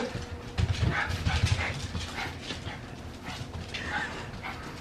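French Bulldog puppies playing and tussling over toys on a tile floor: paws scrabbling and low knocks, busiest in the first two seconds, with a few faint short dog whimpers or yips.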